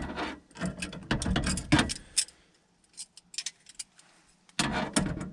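Metal clanks, scrapes and clicks of hand tools working on a furnace's gas piping fittings. They come in two busy stretches with a short pause in between.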